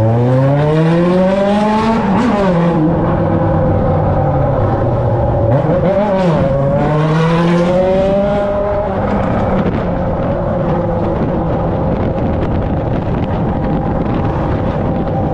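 Yamaha XJ6 motorcycle's inline-four engine and exhaust under way, the revs climbing for about two seconds, dropping briefly, then climbing again a few seconds later before settling into a steadier, slightly quieter run for the last third.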